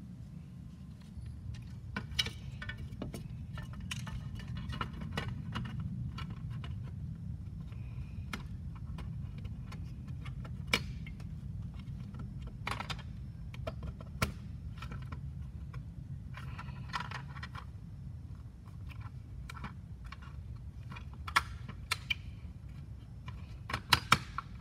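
Circuit boards and the black plastic case of a ToolKitRC M4Q charger clicking and rattling as they are handled and fitted back together, with irregular sharp clicks over a steady low hum.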